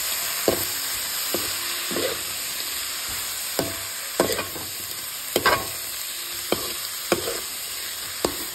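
Prawns sizzling in a hot metal wok while a metal ladle stirs and tosses them: scrapes and knocks of the ladle on the pan come every half second to second over a steady frying hiss, loudest about five and a half seconds in.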